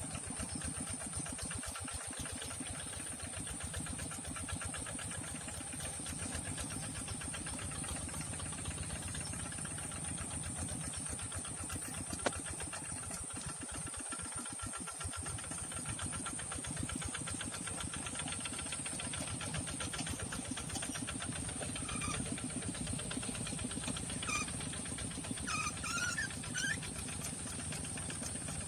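Tractor diesel engine running steadily, with an even, rapid beat of firing pulses. There is a single sharp click about twelve seconds in, and a few short high chirps near the end.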